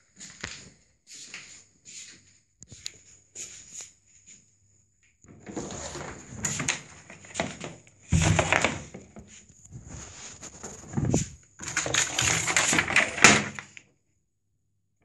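Footsteps in slippers, short and evenly spaced, then loud rustling and rubbing as the phone's microphone is pressed against and dragged over cloth.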